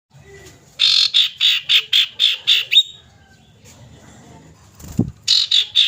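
Common iora calling: a quick run of about eight sharp, high notes at roughly four a second, then a second run beginning near the end. A short low thump comes just before the second run.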